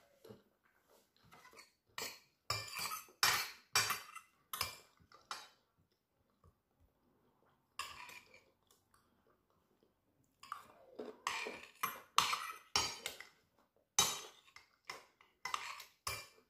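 Metal fork and knife scraping and clinking on a plate as food is cut, in two runs of strokes with a pause of a few seconds between.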